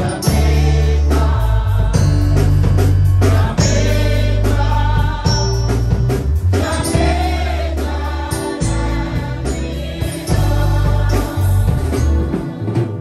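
A congregation sings a gospel song together, with instruments behind it and a strong, steady bass line under the voices.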